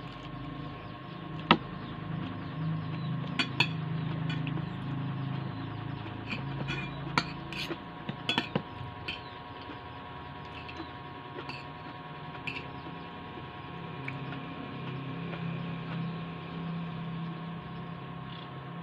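Spoon and fork clinking and scraping against a ceramic bowl of rice and sautéed cabbage, with a few sharp clinks, most of them between about 7 and 9 seconds in, over a steady background hum.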